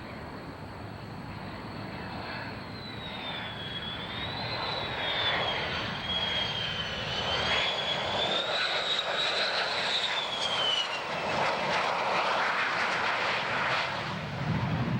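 An aircraft's engine noise building up, with a high whine that wavers in pitch and falls away about eleven seconds in; the noise is loudest in the second half.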